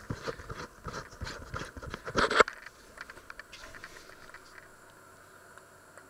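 Close handling noise: a quick run of rustles, clicks and scrapes, loudest about two seconds in, that stops sharply, then only a few faint ticks over a low hiss.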